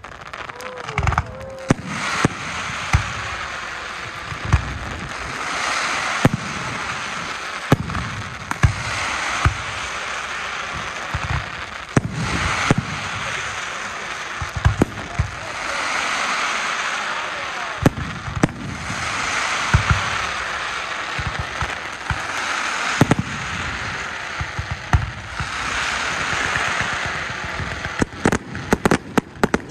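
Fireworks display: aerial shells bursting with sharp bangs every second or so, over swelling waves of crackle from the bursting stars. Near the end the bangs come in a rapid volley.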